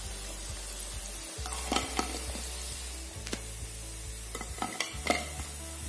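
Methi muthiya deep-frying in hot oil, sizzling steadily, with a few sharp clicks of a utensil against the pan as the golden-brown pieces are lifted out, twice about two seconds in and again near the end.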